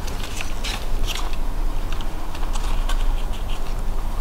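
Irregular small clicks and scrapes of hands gripping and turning over a plastic 1/16-scale RC military buggy, fingers feeling over its body while searching for the power switch.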